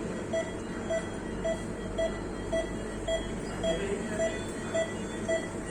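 Medical equipment alarm beeping steadily: a short mid-pitched electronic beep repeating about twice a second, over a steady low hum.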